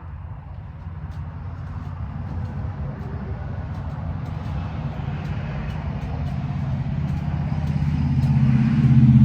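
A car engine running, a low rumble that grows steadily louder and is loudest near the end.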